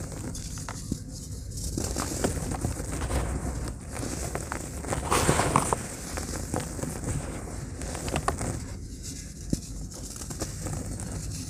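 Pure cement blocks crumbled by hand into a plastic tub: gritty crunching and crackling as the chunks break, with dry cement powder and crumbs pattering down, loudest about five seconds in.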